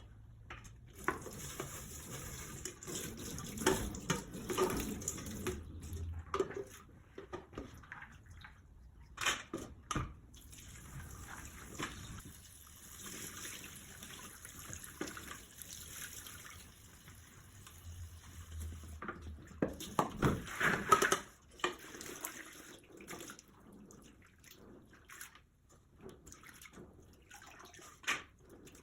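Water running from a kitchen tap into the sink, starting and stopping, with splashing and scattered knocks. The sound is loudest about twenty seconds in.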